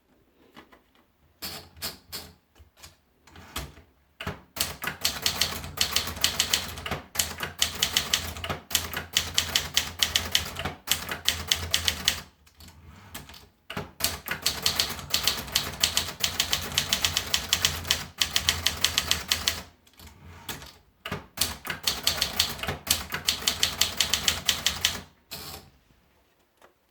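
Adler Contessa Deluxe manual portable typewriter being typed on: fast runs of key strikes lasting several seconds each, broken by a few short pauses, stopping shortly before the end.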